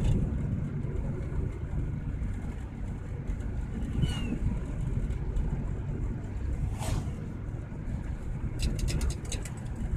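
Car driving along a rural road, heard from inside the cabin: a steady low rumble of engine and tyres. Near the end comes a short burst of rapid clicks.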